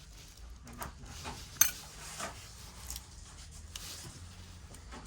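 Small clicks and scrapes of hand tools against an opened iPhone 11 Pro as its glued battery is worked out, with one sharp clink about a second and a half in.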